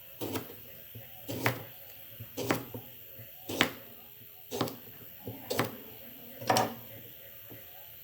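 A series of seven sharp knocks, evenly spaced about one a second, each with a brief low thud.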